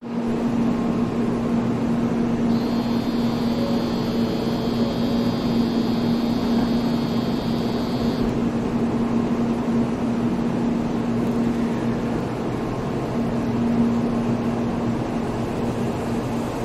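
Shinkansen train running at the station: a steady rushing noise with a constant low hum. A high whine of several tones sounds for a few seconds near the start, then stops.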